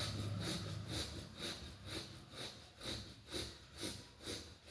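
Forceful bellows breathing through the right nostril (bhastrika pranayama), with the left nostril held closed: short sharp nasal breaths in and out, about two a second, in a steady rhythm.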